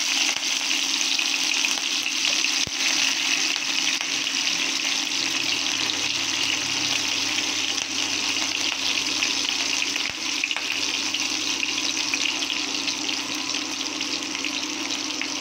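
Sliced green chillies and bay leaves sizzling in hot oil in a frying pan: a steady hiss, with a steady low hum underneath.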